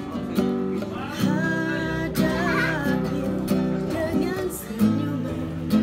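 Nylon-string classical guitar played by hand, with chords strummed and picked in a slow, changing progression.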